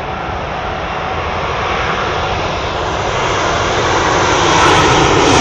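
Airbus A380's jet engines on short final approach, growing steadily louder as the airliner comes in low, with a steady whine running through the noise and a second, higher whine rising near the end.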